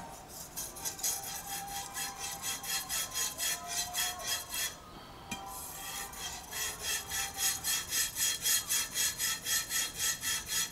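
A Shun Premier chef's knife blade stroked back and forth on a whetstone: a quick rasping rub of steel on stone, about three strokes a second, with a short pause a little before halfway.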